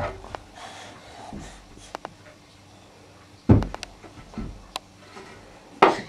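Small wooden chair knocking and scraping on the floor as a toddler pushes and moves it: a series of sharp wooden knocks, with a cluster about three and a half seconds in and another loud knock near the end.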